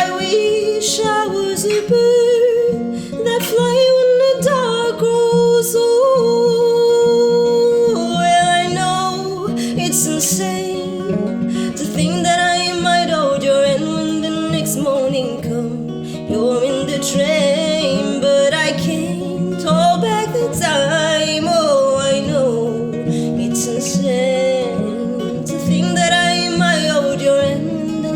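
Acoustic guitar playing with a woman singing over it, her voice gliding between notes.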